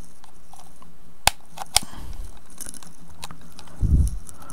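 Plastic housing of a PIR motion-sensor light being cracked apart with tools: two sharp snaps about half a second apart, then a dull thump near the end.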